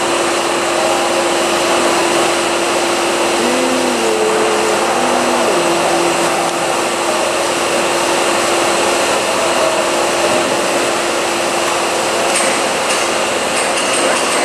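A CNC angle-head milling cutter cuts a curved groove in a large metal workpiece under flood coolant, giving a steady, loud spray-and-cutting noise with a constant hum. A few light ticks come near the end.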